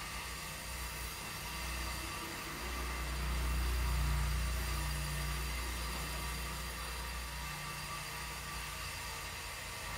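A deep low rumble that swells up over a couple of seconds and fades away again, over a steady hiss.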